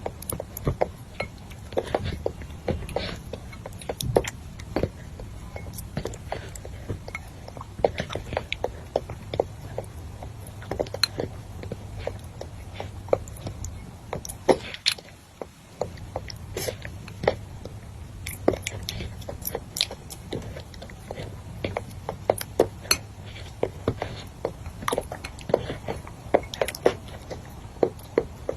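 Close-up eating sounds: wet chewing and lip-smacking, with many quick, irregular clicks.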